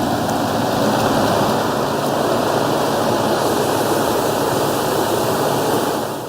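Steady, loud rush of falling and running water, typical of heavy rain and flood water, cutting off abruptly at the end.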